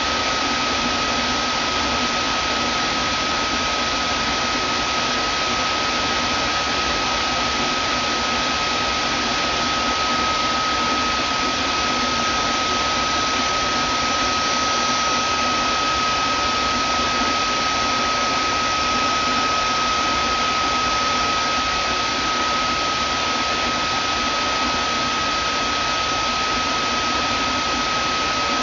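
Vacuum cleaner motor running steadily: a constant rushing hiss with a high whine held on one pitch.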